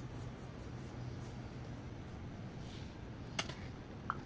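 Garlic powder shaker being shaken over a bowl of marinating chicken, a faint rhythmic shaking a few times a second that stops after about a second and a half. A couple of light clicks follow near the end.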